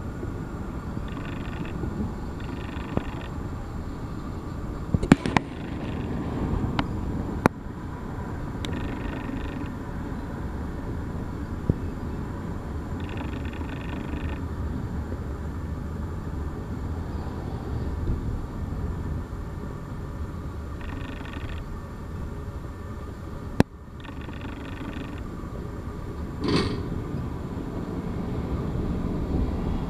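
Union Pacific freight train rolling slowly past: a steady low rumble of wheels on rail, with scattered sharp clicks and knocks and short patches of higher hiss.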